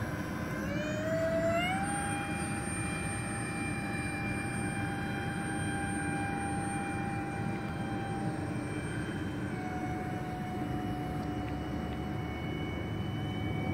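Electric ducted fans of a radio-controlled Airbus A330 model whining in flight. The pitch rises about a second in, holds steady, dips slightly near ten seconds and starts to fall at the end. A steady rushing noise runs underneath.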